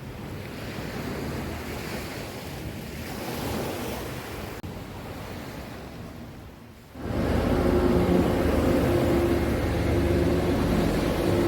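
Ocean surf washing ashore, with wind buffeting the microphone. About seven seconds in it cuts abruptly to louder music with held notes.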